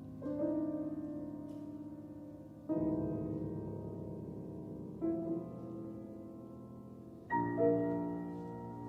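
Solo piano playing slow, sustained chords: four struck about every two and a half seconds, each left to ring and fade before the next.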